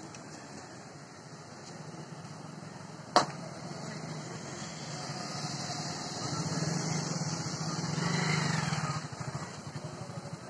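Bus stand traffic: vehicle engines running steadily, with motorcycles passing close by, louder from about six seconds in and fading after nine. A single sharp click about three seconds in.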